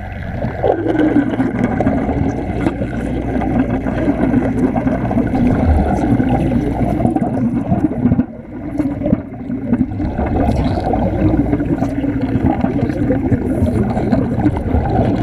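Continuous loud underwater bubbling and crackling, dipping briefly about 8 seconds in.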